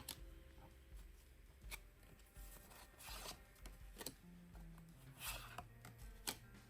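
Faint rustling, scraping and crinkling of a trading-card box and its packaging being opened and handled, in short irregular bursts.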